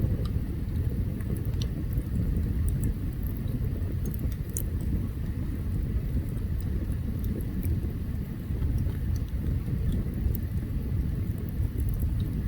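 Open campfire burning: a steady low rumble with small, sharp crackles and pops scattered through it.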